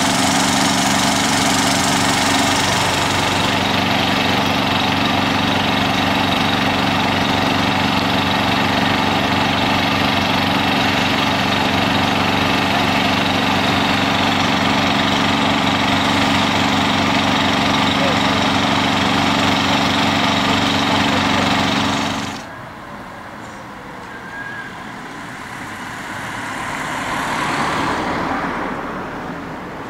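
A MAN fire engine's diesel engine idling steadily close by. About three quarters of the way through it gives way suddenly to fainter road and wind noise that swells briefly near the end.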